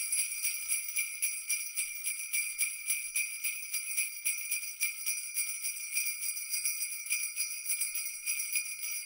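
Sleigh bells jingling in a quick, steady rhythm, with a high ringing shimmer.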